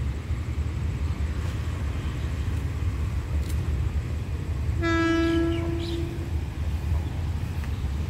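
Horn of the Hitachi diesel-electric locomotive 4516 hauling the approaching train, one steady blast of a little over a second about five seconds in, over a steady low rumble.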